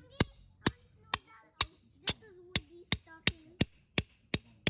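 A rapid series of sharp strikes, about two a second and evenly paced, with faint voices between the blows.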